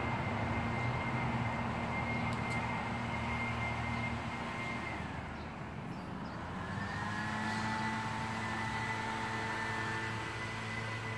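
A motor running steadily: a high whine over a low hum. About five seconds in, its pitch slides down and it fades, then it comes back about a second later and holds steady.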